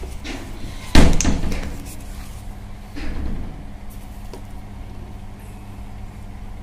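A loud knock about a second in that dies away over most of a second, then a softer knock near three seconds, over a steady low hum.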